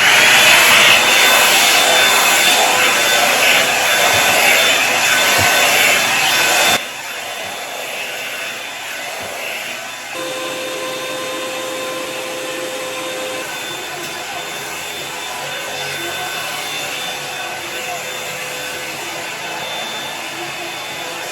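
Revlon One-Step hair dryer and styler running on its highest setting: a steady rushing blast of air with a faint motor whine. Just under seven seconds in, it drops abruptly in loudness and then runs on steadily.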